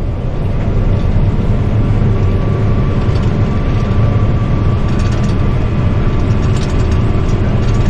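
Heavy machinery running steadily: a loud low rumble with a constant thin whine above it.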